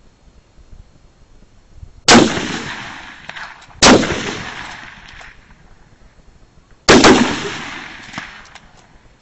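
Three big-bore rifle shots from 7.92 mm Mauser rifles, the first two under two seconds apart and the third about three seconds later. Each is a sharp crack followed by a rolling echo that dies away over a second or so.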